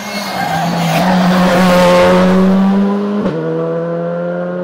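Rally car engine at high revs, growing louder as the car comes up the stage and passes about two seconds in. There is a short break in the engine note about three seconds in, then a steady note.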